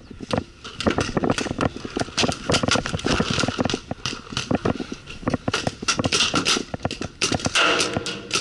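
Paintball markers firing: sharp pops in quick, irregular volleys, several a second.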